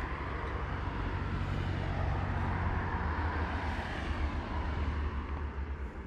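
Distant road traffic: a steady low rumble under an even hiss.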